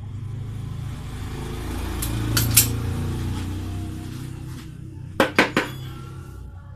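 Metal tools and parts clinking: a couple of clinks about two and a half seconds in, then three quick clinks about five seconds in, over a low hum that swells and fades.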